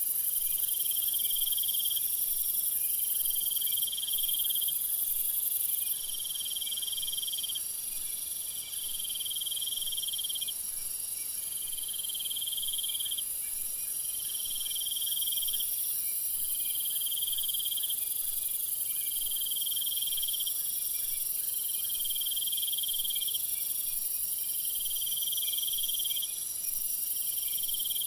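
Meadow insects chirping in chorus. A trill repeats about every two and a half seconds over a continuous high, shrill hum.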